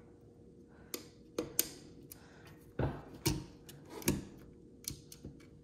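Irregular small clicks and taps of metal and plastic parts and screws being handled and fitted into a Nakamichi 600 cassette deck's tape mechanism during reassembly, over a faint steady hum.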